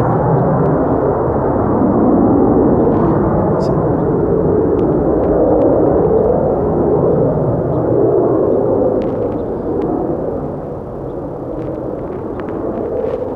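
Jet roar of a CF-18 Hornet's twin F404 turbofan engines as the fighter flies past on a go-around: a loud, steady rumble that eases off about ten seconds in.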